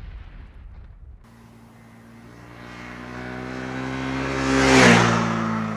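Honda CBR300R's single-cylinder engine as the motorcycle approaches at a steady speed, growing louder, and passes by about five seconds in, its pitch dropping as it goes past and then fading. A low rumble dies away in the first second.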